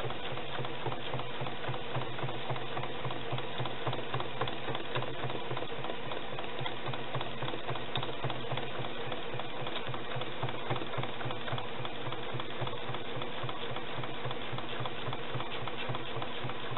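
Domestic sewing machine running steadily, sewing a straight stitch through a layered quilt with a rapid, even needle rhythm.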